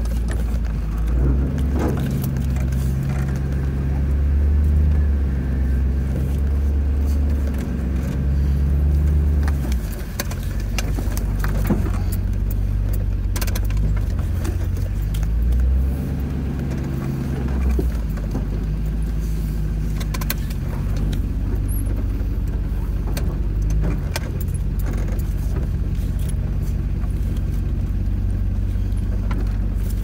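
1997 Land Rover Defender 90's V8 engine running at low speed, heard from inside the cab, its pitch stepping up and down as the truck creeps over rough dirt, with scattered clicks and rattles.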